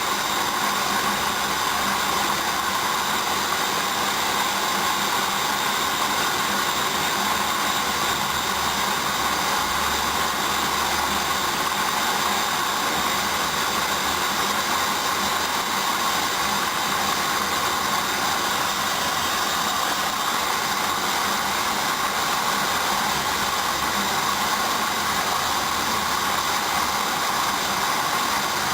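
Hoover Dynamic front-loading washing machine running the duvet programme early in its main wash: a steady, unchanging mechanical noise.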